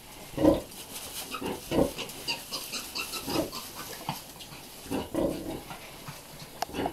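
Hampshire-cross sow giving short, low nursing grunts about once a second while her litter suckles, the grunting that goes with feeding piglets. Faint high squeaks from the piglets come in about two to three seconds in.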